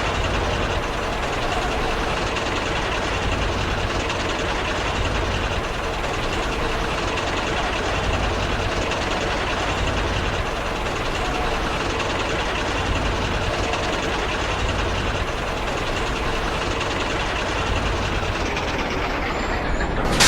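Diesel engine running steadily at a constant level, with a low rumble underneath.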